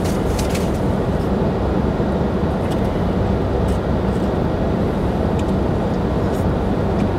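Steady hum of a car idling, heard from inside the cabin, with a few faint clicks of a plastic fork against a foam cup.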